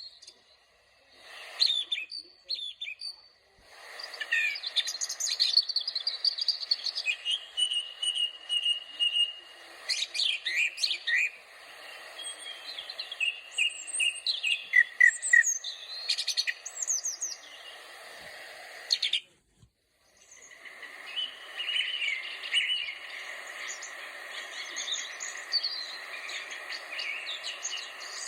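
Birdsong: several birds chirping and singing in quick, varied trills and whistles over a steady high background hum. The sound drops out briefly twice, about three and a half and nineteen and a half seconds in.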